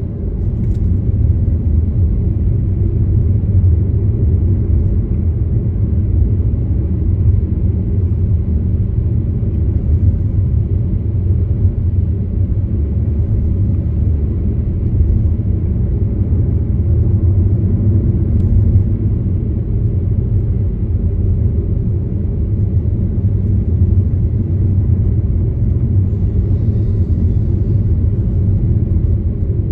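Steady low rumble of a car driving along the road: engine and tyre noise holding an even level.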